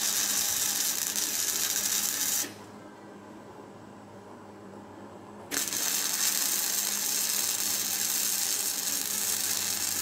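Electric arc welding: the steady crackling sizzle of the welding arc, which cuts off about two and a half seconds in and strikes up again about three seconds later.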